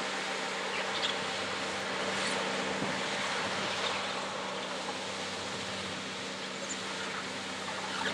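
Loram shoulder ballast cleaner working the track shoulder: a steady machine drone with a low hum from its engines and digging wheels, and a few faint ticks of stone.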